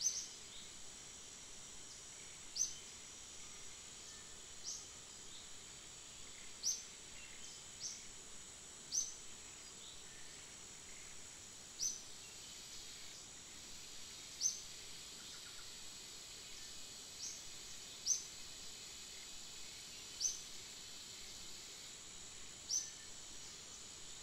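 Forest ambience: a steady high insect drone, with a short high rising chirp repeated every two to three seconds, typical of a bird calling.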